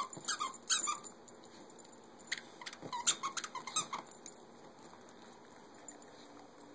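Squeaky dog toy (a plush chicken) being chewed by a corgi, giving rapid clusters of short squeaks in the first second and again around three to four seconds in.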